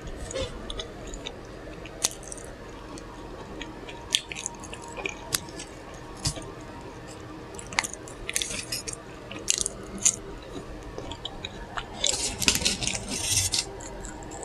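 Close-miked chewing of a burger with wet mouth smacking: scattered sharp mouth clicks, thickening into a dense run of smacking near the end.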